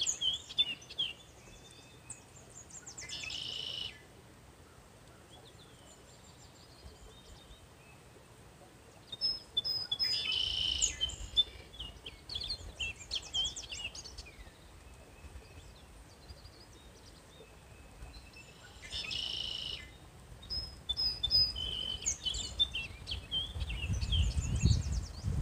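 Songbirds singing in short, high chirping phrases that come back every few seconds, with quiet gaps between. A low rumble rises near the end.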